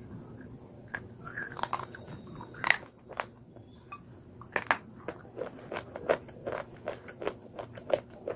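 A person biting through and chewing a hard brown earthen bar: a loud crack about two and a half seconds in, then a steady run of sharp crunches, about three a second, through the second half.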